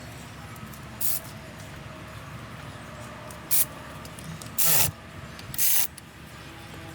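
Four short bursts of hissing spray, the longest a little before the five-second mark.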